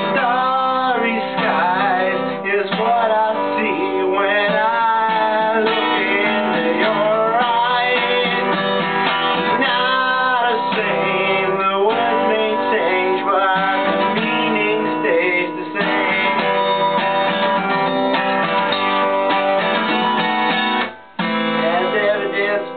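Steel-string acoustic guitar strummed in a steady song accompaniment, breaking off briefly near the end before picking up again.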